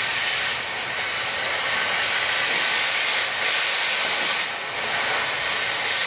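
Stick welding: an electrode arc burning against a steel beam, a steady crackling hiss with a few brief dips in level.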